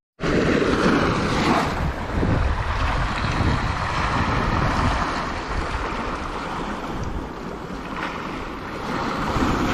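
Wind buffeting the microphone over the wash of sea waves, a steady loud rumbling noise that starts abruptly.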